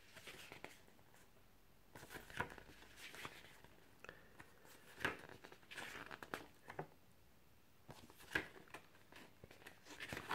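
Pages of a glossy, high-quality paper booklet being turned by hand: faint, scattered rustles and soft paper flicks.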